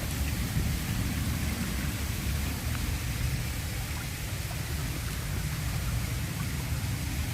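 Waterfall rushing steadily, a dense unbroken wash of falling water with a deep rumble underneath.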